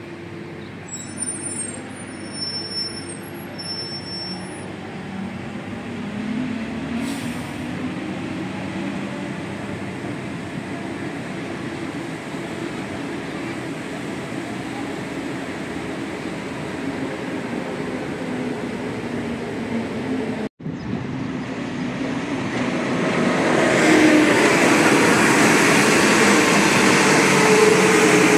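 Santiago Metro Line 1 rubber-tyred trains running through an open cutting, the electric traction motors whining and rising in pitch as a train pulls away, with a few brief high-pitched tones in the first seconds. After a short break about 20 seconds in, a train runs louder and closer, its motor whine again rising in pitch.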